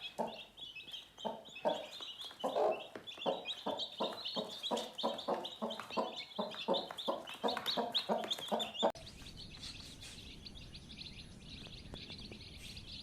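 Chicken clucking in quick short calls, about three a second, which stop abruptly about nine seconds in. Faint high chirping follows.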